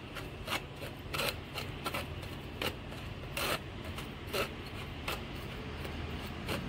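A spoon rubbing dry custard powder mix through a stainless steel mesh sieve: a dry, scratchy rasp in repeated, uneven strokes against the mesh, about one or two a second.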